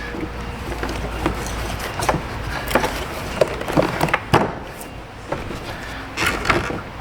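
Irregular clicks, knocks and scrapes of parts and tools being handled and fitted back together in a car's engine bay, over a steady low background hum.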